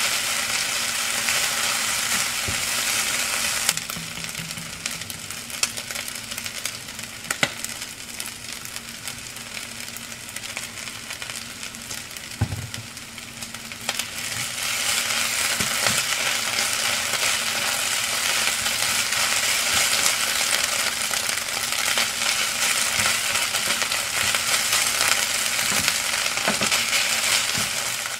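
Rice and diced vegetables sizzling in a nonstick frying pan, stirred and scraped with a silicone spatula that knocks against the pan now and then. The sizzle drops about four seconds in and picks up again about halfway through.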